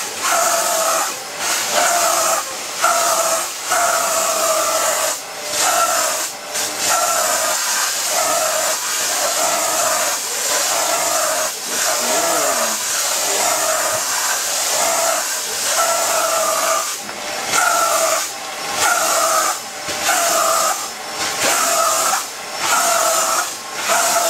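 Vacuum cleaner running with a steady hiss and whine, its sound dipping briefly about once a second as the nozzle is stroked over an animal's fur.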